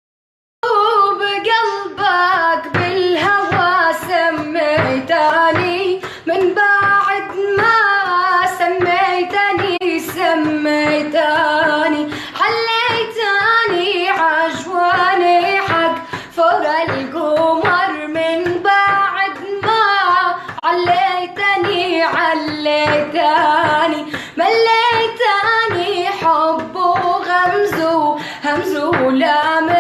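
A girl singing a melody with many slides and bends in pitch, her voice carrying on almost without pause.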